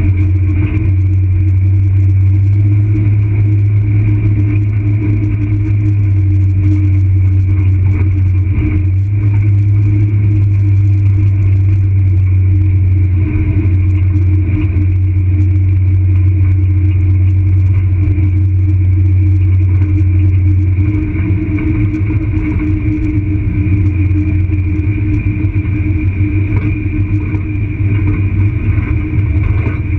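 Off-road vehicle driving slowly along a rough dirt track: steady engine drone with road rumble, turning more uneven about two-thirds of the way through.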